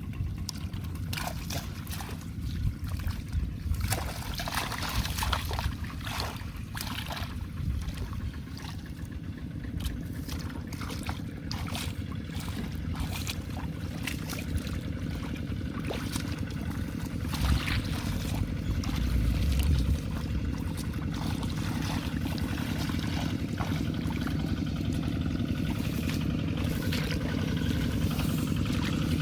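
Shallow water splashing and trickling in irregular bursts over a steady low rumble.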